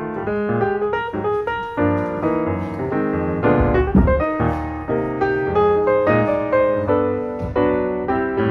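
Background music: piano playing a flowing melody with chords.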